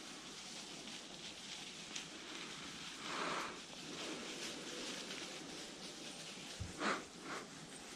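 Dry leaf litter rustling and crunching underfoot, with a longer brushing swish about three seconds in and two louder crunching steps near the end.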